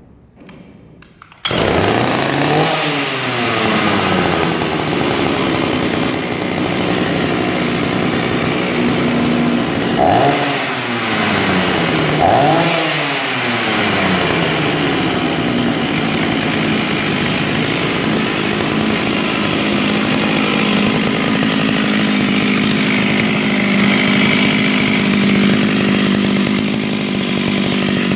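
Oleo-Mac 264 two-stroke chainsaw firing up about a second and a half in, then running. Its revs rise and fall as it settles, it is blipped up twice in the middle, and after that it runs steadily. The saw is said to have been run on straight fuel with no oil mixed in, and the owner fears it may not last long without a rebuild.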